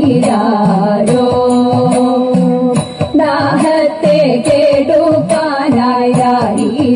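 Thiruvathira kali song: a voice singing a Malayalam devotional melody in a Carnatic style, with sharp hand claps keeping time about twice a second.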